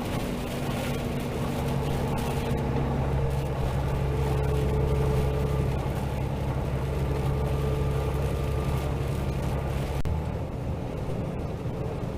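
Steady vehicle engine and road noise: a low drone that holds steady, then shifts and drops slightly about ten seconds in.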